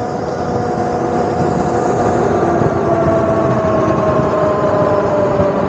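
Modified Razor electric mini dirt bike riding on the road: the electric motor's whine falls slowly in pitch as the bike eases off, over a steady rush of wind and road noise.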